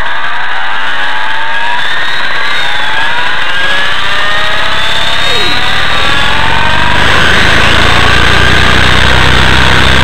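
Radio-controlled scale helicopter's motor and rotor heard from an onboard camera, spooling up on the ground with a whine that rises steadily in pitch. About seven seconds in, a heavy low rumble of rotor downwash buffeting the microphone comes in, and the sound grows louder as the model nears lift-off.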